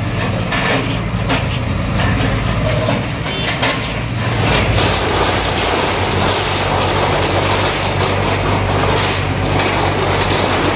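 Diesel engines of a JCB backhoe loader and an excavator running under load while demolishing a building, with corrugated metal sheeting and rubble rattling and crashing. The clatter grows denser about four seconds in.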